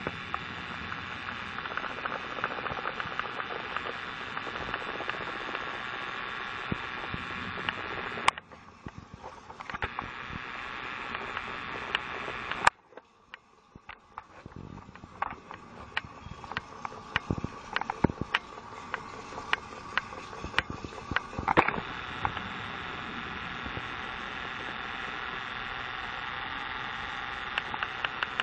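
Motorized toy train running on plastic track: a steady whir with scattered clicks, cut off abruptly twice. Near the end the clicks settle into an even rhythm of about four a second.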